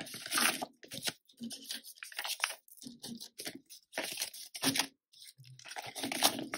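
Clear plastic binder pocket and polymer banknotes rustling and crinkling in irregular bursts as notes are pulled out and leafed through by hand.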